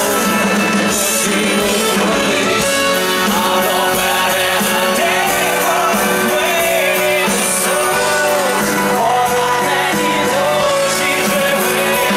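Rock band playing live through a large concert sound system, with drums, electric guitars and keyboards and a wavering melody line, loud and steady, recorded from within the audience.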